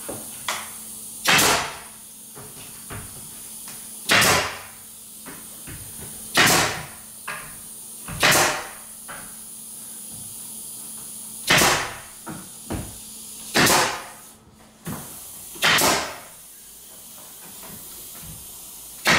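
Pneumatic nail gun firing nails into wooden window trim: about seven sharp shots a couple of seconds apart, with fainter knocks between them.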